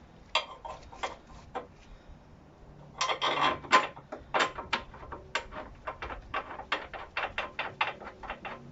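Metal hand tools and bolts being handled while fitting a suspension bolt: a few sharp clicks, a denser rattle about three seconds in, then a run of regular clicks, about three a second, typical of a ratchet spanner.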